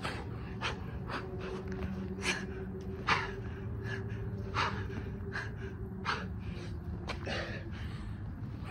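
A man breathing hard during burpees, with about a dozen short, irregular sharp exhales and scuffs of hands and shoes on concrete. A steady low hum runs underneath.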